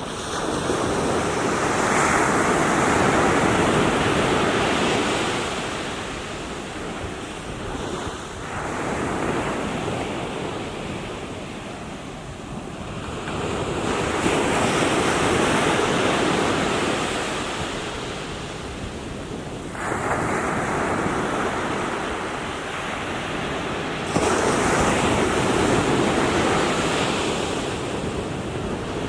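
Small sea waves washing onto the shore, each surge swelling and then drawing back, about five times, every five to six seconds.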